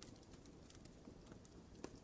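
Wood fire burning in a fireplace: faint, sparse crackles and pops over a soft steady hiss, with a slightly stronger pop near the end.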